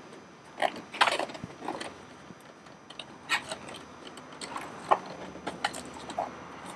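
A leather upholstery cover being stretched and rolled by hand over a hard plastic console frame: an irregular run of short scuffs, rubs and creaks, with a couple of sharper knocks about a second in and near five seconds in.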